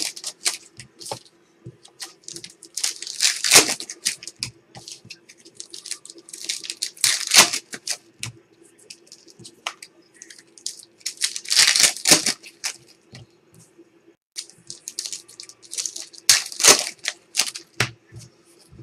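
Foil trading-card pack wrappers being torn open and crinkled, a loud tearing burst every few seconds with lighter clicks and rustles of cards being handled between them. A faint steady hum runs underneath.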